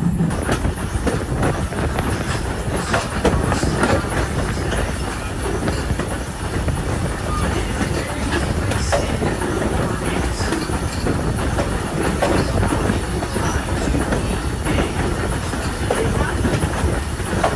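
Passenger train rolling along the track: a steady rumble with the wheels clicking over rail joints.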